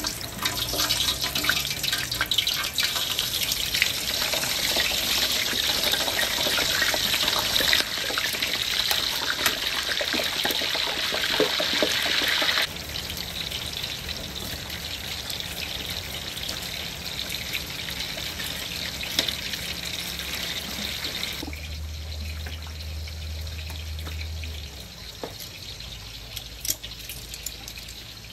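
Slabs of pork belly slow-frying in oil on low heat for the first frying stage, sizzling with fine crackles. The sizzle drops abruptly about twelve seconds in and again about twenty-one seconds in, and a low hum runs for about three seconds after the second drop.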